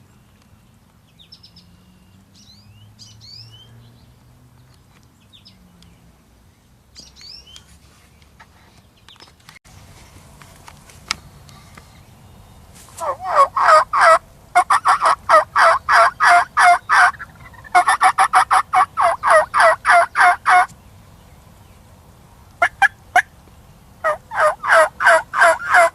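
Turkey calling: loud runs of rapid, pulsed notes at about four a second, starting about halfway in, breaking off twice and resuming near the end. Before that, small songbirds chirp faintly.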